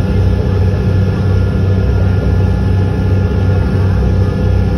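Boat's engine running steadily under way: a loud, even low drone with a faint steady high whine over it.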